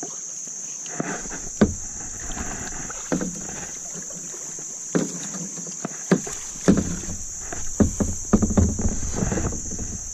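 Kayak being paddled: double-bladed paddle strokes splashing in the water, with several sharp knocks among them.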